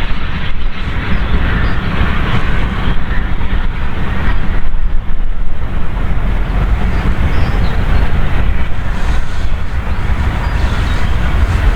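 A train running past with a continuous low rumble.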